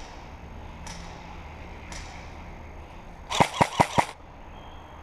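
Airsoft gun firing five quick shots a little over three seconds in, loud and sharp, after fainter single cracks about once a second.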